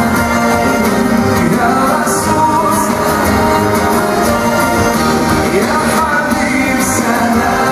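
Live band playing a pop song, with a man singing over guitars, drums and keyboards.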